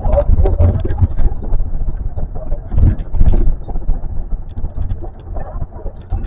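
Osaka Metro New Tram, a rubber-tyred driverless train, running along its guideway: a steady low rumble with scattered knocks and rattles, heard from inside the front of the car.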